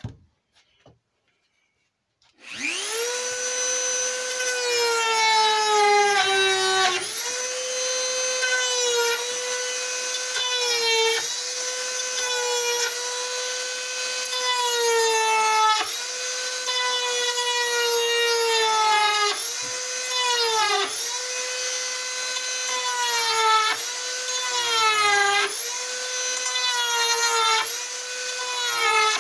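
High-speed rotary carving tool switched on about two seconds in, whining up to speed; its pitch sags each time the bit is pushed into the wood to cut the roof shingles and climbs back when the load eases, about a dozen times.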